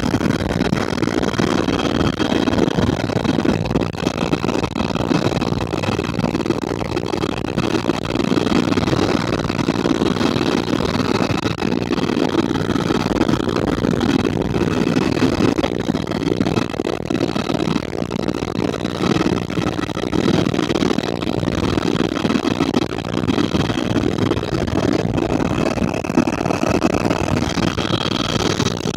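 Steady helicopter engine and rotor noise, heard from inside the cabin in flight, with a faint high whine running through it.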